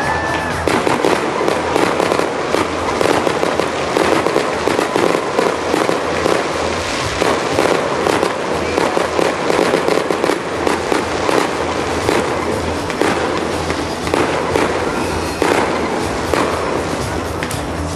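Star mine fireworks barrage, aerial shells fired in rapid succession. It makes a dense, continuous volley of bursts and crackles with no real pause.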